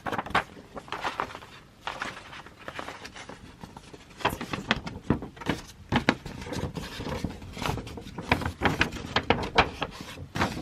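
Hands handling an album's cardboard and paper packaging: irregular rustling, scraping and small knocks as an item is pulled out, busier from about four seconds in.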